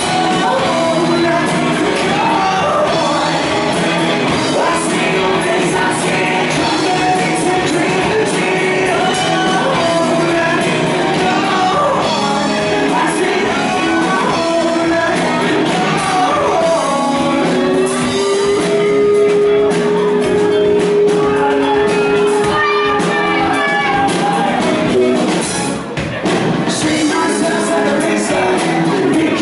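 Live rock band playing: electric guitars, bass guitar and drums, with a male singer singing into a microphone. A long held note sounds over the band in the middle of the passage.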